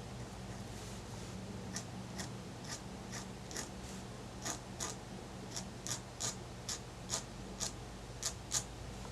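A pen tip tapping dots onto paper: a run of light, sharp ticks, about two a second, starting about two seconds in.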